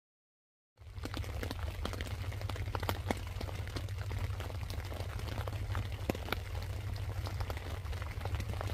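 Heavy rain drumming on a tent: a dense patter of drops over a low, steady rumble, starting abruptly about a second in.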